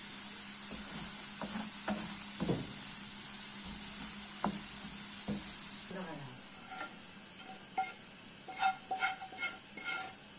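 Chopped onions and spices sizzling in oil in a frying pan, with a few soft knocks of the spoon stirring them. About six seconds in the sizzling stops and a run of quick ringing clinks follows, a spoon knocking against the pan as the fried onions are scraped out into the stew pot.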